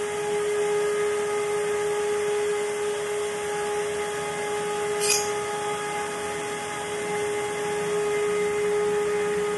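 Ebmpapst 6318/19HP 48V tube-axial server fan with double ball bearings running at speed: a steady whine over an even rush of air. A brief sharp tick sounds about halfway through.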